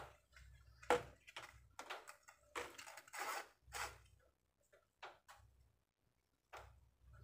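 Faint handling noise from an action camera in its plastic case and a strap mount: scattered clicks and rustles, with a sharp click about a second in and a longer scraping rustle around three seconds.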